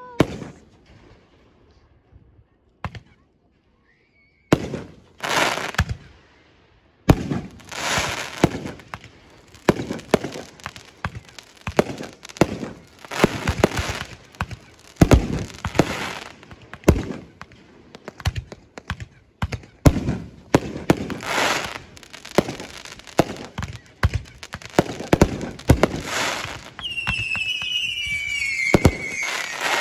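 Fireworks going off: after a few quiet seconds, bangs follow one after another, each trailing off, and they crowd into a near-continuous barrage. Near the end a high whistling tone wavers and falls.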